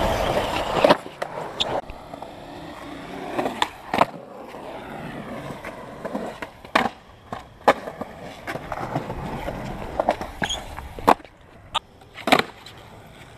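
Skateboards on a concrete skatepark: loud wheel rolling for about the first second, then quieter rolling broken by about ten sharp clacks of boards hitting the concrete.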